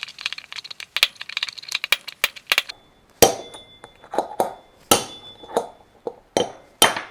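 Hammer blows on a steel tapered pin used as a drift to knock a worn wheel bearing out of a quad bike's front wheel hub: a quick run of light taps, then about seven heavier metallic strikes that ring briefly.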